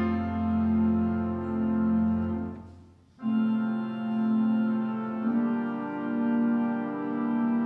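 Organ playing slow, held chords as instrumental church music. One chord fades away about three seconds in, and a new chord starts right after it.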